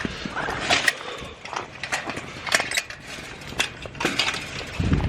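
Footsteps crunching through snow, a series of irregular crunches about twice a second, with a heavier low thump near the end.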